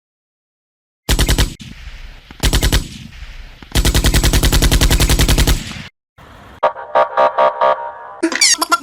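Machine-gun fire in three rapid bursts, two short and then one of about two seconds, followed by electronic music that starts with rhythmic synth tones and gliding effects near the end.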